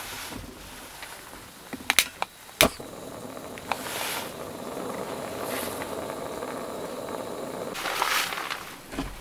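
A long-nosed lighter clicks a few times to light a small gas canister stove. The burner then catches and runs with a steady rushing hiss.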